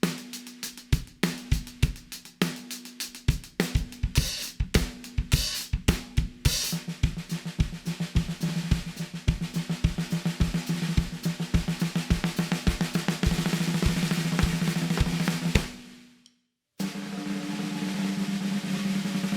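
CMC maple and bubinga 14x6.5-inch snare drum played with a kit: a beat of snare and bass drum strokes, then a snare roll that quickens into a fast, dense roll. It breaks off briefly about 16 seconds in, and a second sustained snare roll follows.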